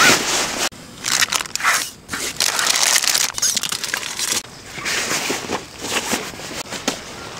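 Nylon stuff sacks and fabric rustling and crinkling in irregular bursts as camping gear is stuffed and packed into a backpack.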